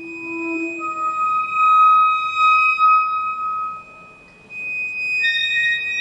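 Contemporary chamber music of sustained, thin, pure high tones held and overlapping, from a quartet of violin, saxophone, accordion and percussion with electronics. One tone fades out about four seconds in, the music briefly drops away, and new higher tones enter near the end.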